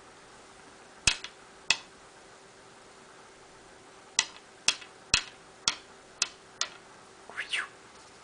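A hand making sharp, crisp clicks at the table, two about a second in and then six more at about two a second. Near the end comes a short rising squeak.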